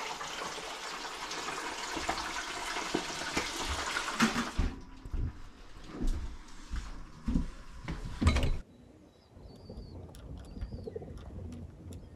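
A steady hiss that stops suddenly about four and a half seconds in, followed by a few low knocks. Then pigeons cooing, with short, high chirps from another bird repeated a few times near the end.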